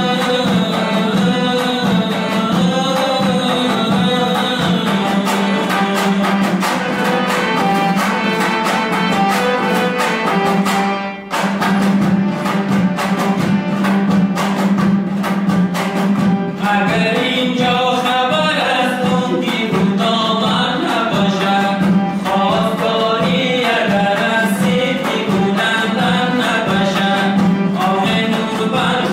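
A song with a singing voice over instruments and drums. The sound drops out briefly about eleven seconds in.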